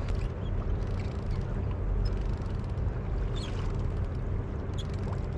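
Steady low-pitched outdoor rumble with a faint steady hum over it, and a few faint clicks about midway and near the end.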